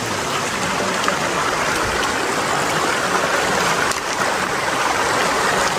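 Rushing water of a rocky stream, a steady rushing noise.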